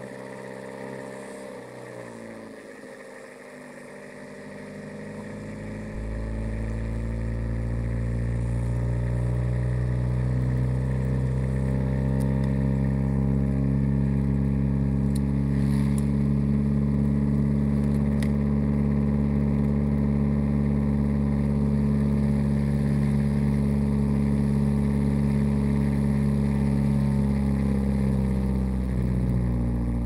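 Ride-on lawn mower's small engine driving along. It runs quieter for the first few seconds, picks up speed with a rise in pitch around five seconds in, then runs steadily and eases off slightly near the end.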